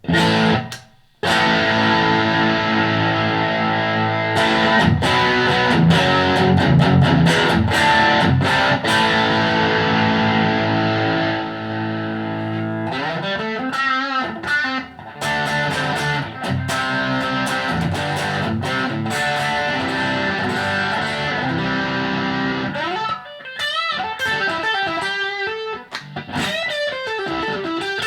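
Single-coil electric guitar played through a Blackstar ID:Core 40 combo amp. For the first half it holds chords that ring out, then it plays single-note lines with bends.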